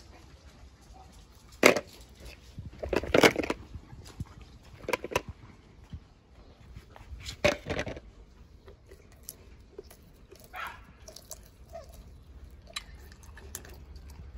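Toy cars being handled: a series of sharp knocks and clatters a few seconds apart, the loudest about two and three seconds in, with softer ones later.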